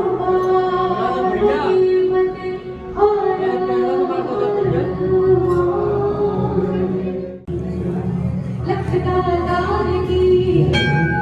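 Devotional singing with music, with long held sung notes. The sound cuts out sharply for a moment about seven and a half seconds in. A bell begins ringing near the end.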